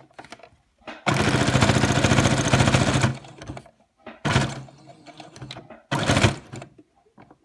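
Electric sewing machine stitching through thick black elastic band, with a fast even needle rhythm. It runs for about two seconds, starting about a second in, then sews two short bursts of a few stitches near the middle and just before the end.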